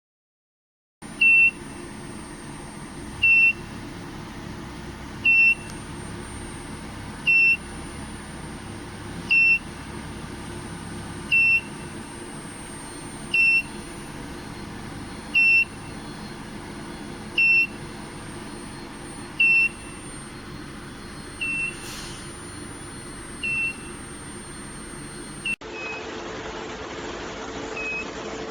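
A short, high electronic beep repeating about every two seconds over a steady machine hum with a faint high whine. Near the end the background changes suddenly and the beeps go on more faintly.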